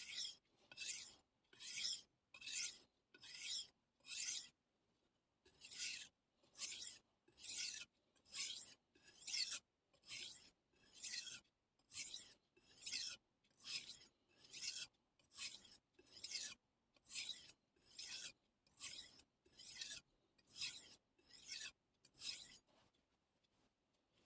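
Kitchen knife blade being pushed back and forth over a whetstone, a steady run of gritty scraping strokes a little under one a second. There is a short pause about four and a half seconds in, and the strokes stop near the end.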